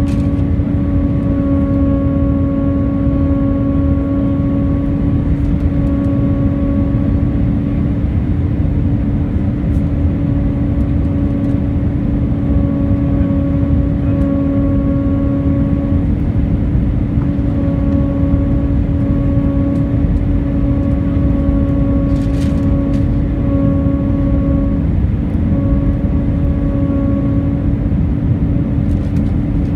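Airbus A319 cabin noise on approach: a steady engine and airflow rumble with a steady hum and its overtones, which dips briefly a few times, and a few faint clicks.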